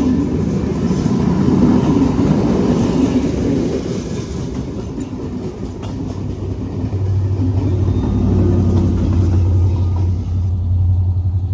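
Passenger express train passing close by, its wheels running loud and continuous on the rails. A steady low hum sets in about seven seconds in.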